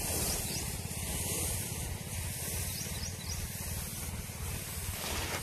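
Tractor engine running steadily to drive a spray pump, a fast even low chugging, with a steady hiss over it.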